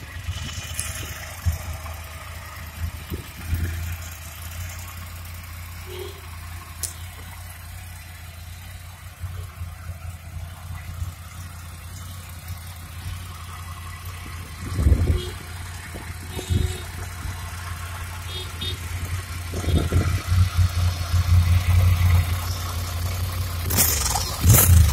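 Ducati Monster 797's air-cooled 803 cc L-twin idling in neutral, a steady low rumble that grows louder near the end as it is heard close to the exhaust.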